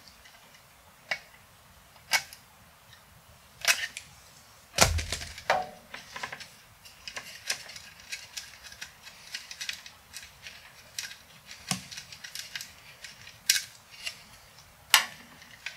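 Scattered small clicks and knocks of a hand tool and the plastic control panel being handled while a nut is taken off the circuit board, with one heavier thump about five seconds in.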